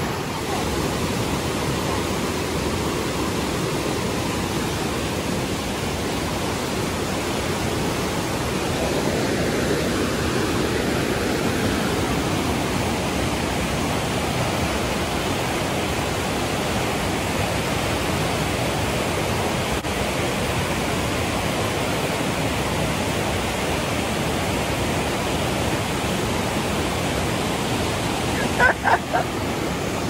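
Fast mountain river running over boulders: steady rushing of whitewater rapids.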